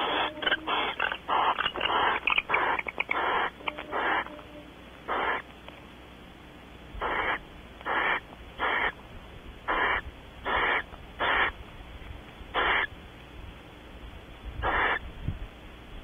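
Barn owl giving short, harsh, hissing calls: a rapid run over the first four seconds or so, then about nine more spaced out, each under half a second.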